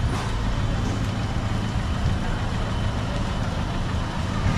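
City street ambience: a motor vehicle's engine running nearby as a steady low rumble, over an even hiss and faint voices of passers-by.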